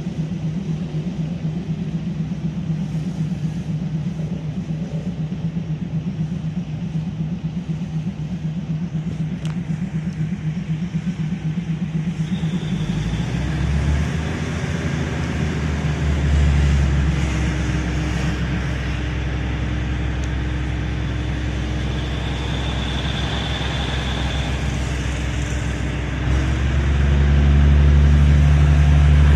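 Diesel train engine heard from inside the carriage, running with a low pulsing drone. About twelve seconds in it opens up to a deeper, stronger note with a faint high whine, and it grows louder again near the end.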